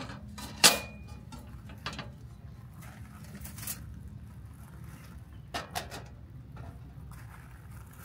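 Metal clanks as a rusty grill grate is set down into a stainless steel fire pit, then a stainless charcoal chimney starter is set on top. The loudest clank, with a short ring, comes just under a second in, followed by a few lighter knocks, two of them close together a little past halfway.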